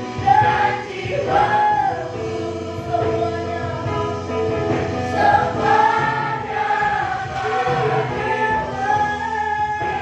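A congregation or choir singing a worship song, with sustained melodic lines over a steady instrumental accompaniment.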